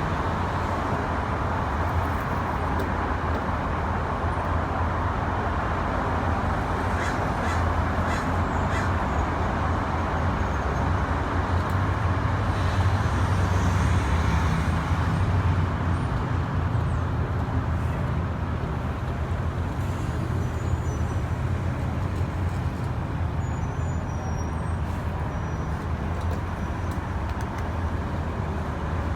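Steady low rumble of background noise, swelling slightly partway through and easing again.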